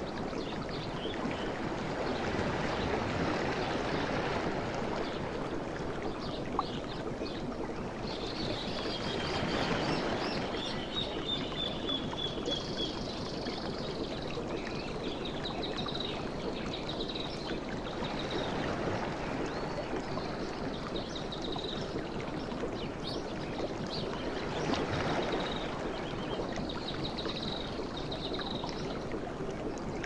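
Ocean surf washing continuously, swelling several times as waves come in. Birds call in repeated high-pitched series from about eight seconds in.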